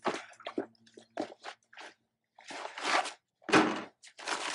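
A bag being rummaged through by hand: a series of short rustles and soft knocks, the loudest about three and a half seconds in.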